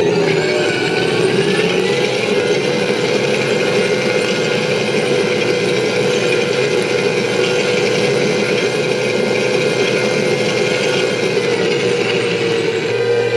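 Simulated M1A2 Abrams turbine engine sound played through an RC tank sound board's speaker: the whine climbs in pitch within the first two seconds, holds steady, then drops back near the end.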